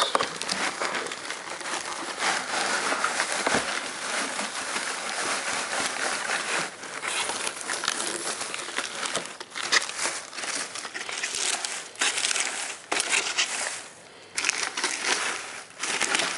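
Shredded magazine paper packing rustling and crinkling in a cardboard box as a hand digs through it, with many small crackles; near the end a bubble-wrapped plastic package is lifted out and handled.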